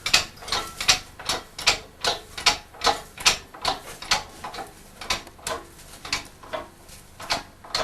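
A hand-worked ratchet clicking steadily, about three sharp clicks a second.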